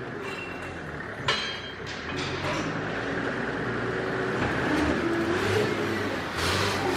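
Forklift engine running and revving as the forklift drives, the revs rising in the second half. A single sharp knock sounds about a second in.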